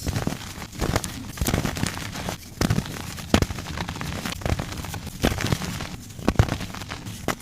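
Soft blocks of gym chalk being crushed close to the microphone: an irregular run of crumbly crunches, about one to two a second, with fine crackling as the chalk breaks apart between them.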